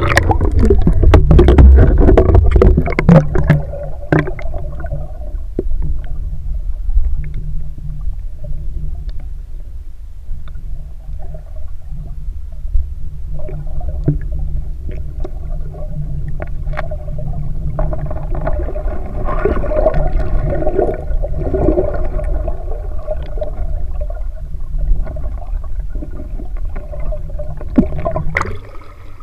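Underwater sound in a murky river: a steady, muffled low rumble of moving water against the camera, loudest in the first few seconds, with scattered clicks and gurgling.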